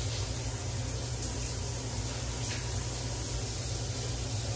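Steady rushing hiss of background noise, even throughout with no distinct events.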